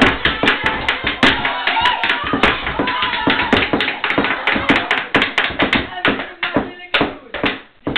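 Hammers banging on a tabletop in a fast, irregular stream of sharp knocks, with excited voices shouting and laughing over them.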